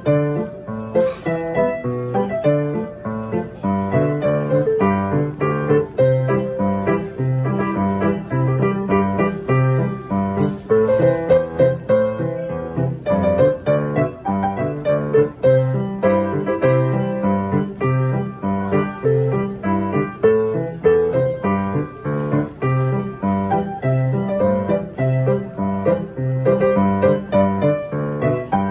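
Solo piano playing an old Taiwanese Hokkien pop song: a melody over a steady, evenly pulsing left-hand bass accompaniment.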